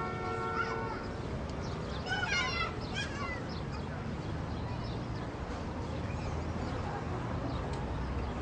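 Outdoor street sound with a steady low rumble: a vehicle horn sounds for about the first second, then a few high wavering calls come about two to three seconds in.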